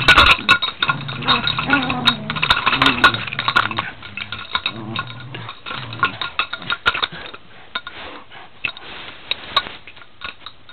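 Two dogs playing tug of war: one growls low and steadily for the first half or so, over many sharp clicks and clinks that thin out and grow quieter in the second half.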